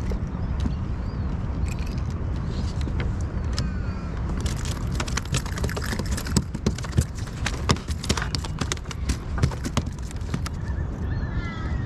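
Irregular hollow clicks and knocks on a plastic fishing kayak as a freshly caught fish is handled and unhooked in the lap, thickest from about four seconds in until near the end. A steady low wind rumble on the microphone runs underneath, with a few short bird chirps.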